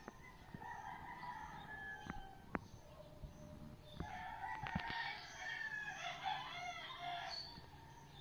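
Roosters crowing: a shorter crow about a second in, then a longer, louder crowing from about four seconds in until past seven seconds. A few sharp clicks sound over a low rumble.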